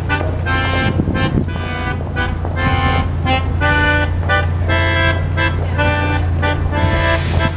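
Melodica played through its mouthpiece tube: a quick melody of short notes following one another, over a steady low hum.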